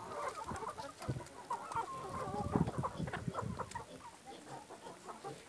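Chickens clucking in a run of short calls, with small clicks and knocks among them.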